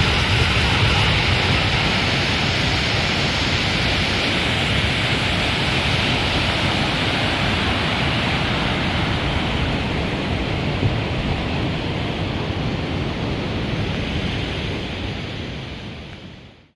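Petawawa River whitewater rapids rushing in a steady, loud roar of water that fades out near the end.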